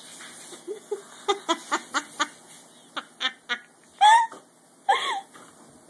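Dachshund making a quick run of about eight short, sharp sounds, then two louder, higher whining yelps that rise and fall, about four and five seconds in.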